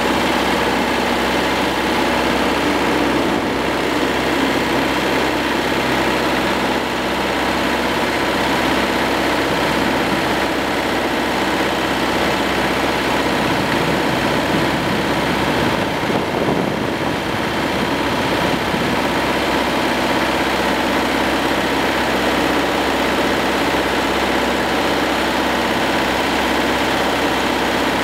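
Hürlimann D70 vintage diesel tractor engine running steadily as the tractor drives along at a constant pace, heard close up from above the bonnet.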